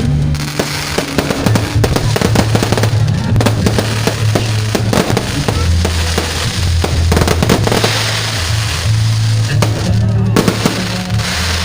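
Fireworks bursting and crackling in rapid, irregular succession, with music and its steady bass line playing underneath.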